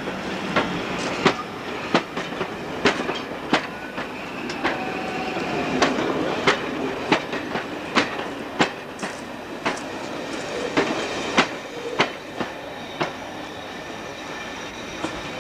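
Passenger coaches rolling past, their wheels clicking over rail joints about one and a half times a second over a steady rumble; the clicks stop near the end as the last coach goes by.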